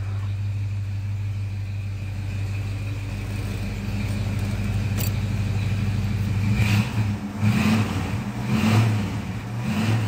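1966 Ford Thunderbird's 390 V8 idling with a steady low hum, then revved in a few short blips about a second apart in the second half.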